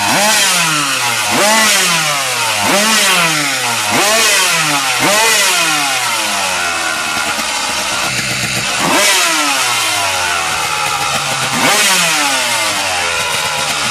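Tuned Kawasaki KDX 200 two-stroke single-cylinder engine with an expansion-chamber exhaust, stationary and revved in sharp throttle blips. Each blip rises fast and falls back. A quick run of them comes about every second and a half, then a few seconds of lower revs, then two more blips.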